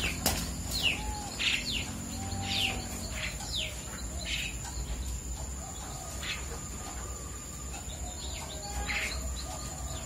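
Starling nestlings, about 12 days old, chirping: a string of short, downward-sliding chirps, roughly one a second, growing sparser in the second half.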